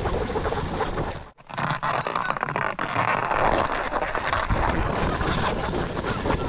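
Skis hissing and scraping over snow, with wind buffeting the microphone. The sound cuts out for a moment about a second in, then carries on the same.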